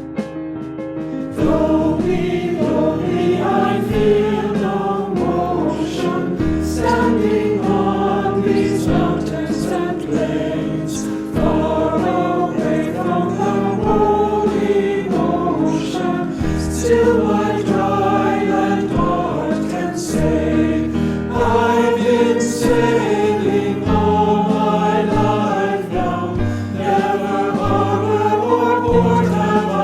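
Mixed church choir singing a hymn with piano accompaniment. The choir comes in about a second and a half in over the piano introduction.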